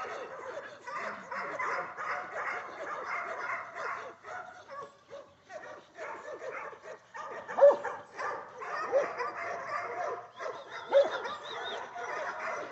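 Herding dogs barking and yipping in a quick, overlapping run as they work cattle, with a few louder single barks in the second half.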